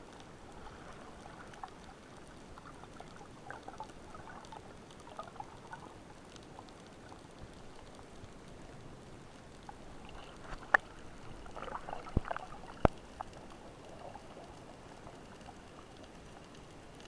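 Underwater ambience on a spearfishing dive: faint, scattered crackling and ticking, with a few sharp, loud clicks and knocks about two-thirds of the way through.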